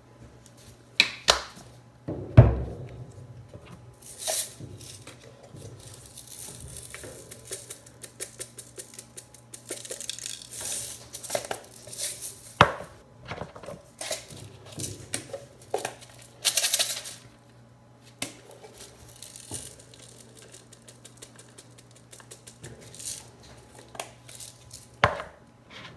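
Metal scrapers and tongs clinking and knocking on a steel rolled-ice-cream cold plate, with short bursts of crinkling and rustling. A heavy knock about two seconds in is the loudest sound, and sharp clicks come around the middle and near the end.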